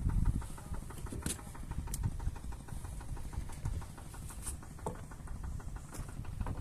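Boat engine idling: a steady low rumble with a fast, even knock, and a few sharp clicks over it.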